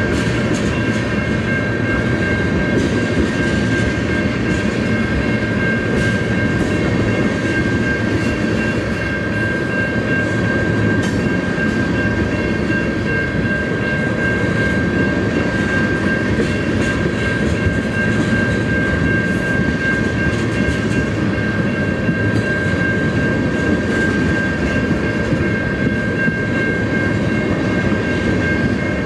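Freight train of tank cars rolling past at a grade crossing: a steady rumble of steel wheels on rail. A constant high-pitched tone rides above it.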